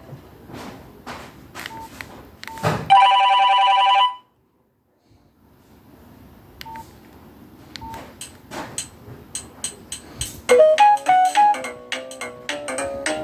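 Nokia 6131 ringtones and alert tones. A percussive ringtone plays first, then a loud steady two-tone alert beep lasts about a second and cuts off into a brief silence. Another ringtone follows, starting with soft percussion, and its melody comes in about ten seconds in.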